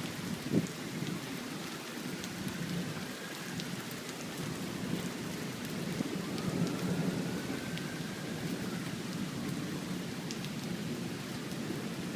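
Heavy rain pouring down steadily in a thunderstorm.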